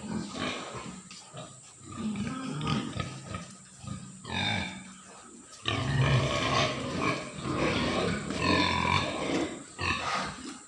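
Pigs grunting, with a short squeal about four seconds in, then louder squealing and grunting from about six seconds in until near the end.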